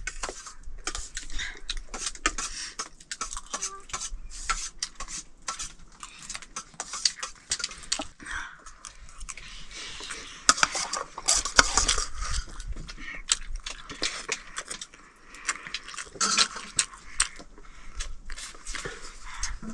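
A spoon clinking and scraping on a metal plate, a run of small irregular clicks.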